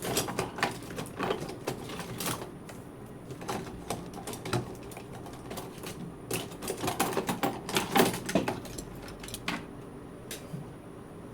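Irregular light clicks and taps of small hand tools and parts being handled on a workbench.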